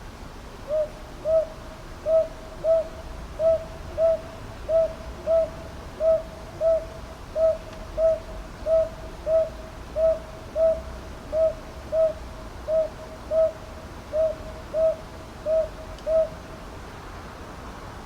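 Northern boobook (Japanese hawk-owl) calling a steady run of two-note hoo-hoo phrases, about a dozen pairs at an even pace of roughly one pair every 1.3 seconds, stopping near the end.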